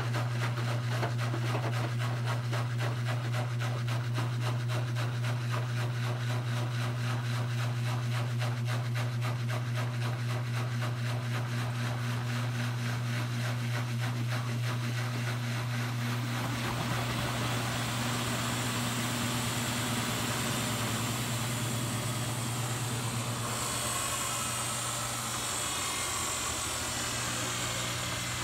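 Miele Touchtronic W3033 front-loading washing machine running a wash, its drum turning with water sloshing in a regular swishing pulse over a steady motor hum. About halfway through, the pulse gives way to a rougher, broader running noise.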